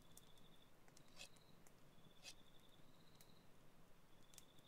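Faint night ambience: a cricket's high trilling chirps repeating about once a second, with a few sharp crackles from a campfire.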